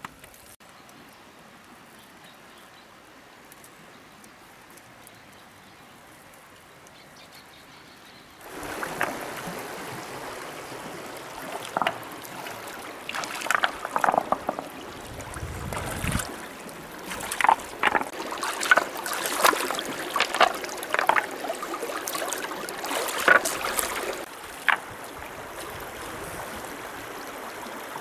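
Quiet outdoor background, then, about a third of the way in, splashing and running water starts, with many irregular sharp splashes.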